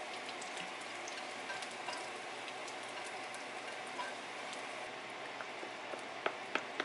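Pork belly sizzling in a frying pan: a steady hiss dotted with small crackles and pops. About six seconds in, a few knocks from a wooden spoon stirring sauce in a plastic container.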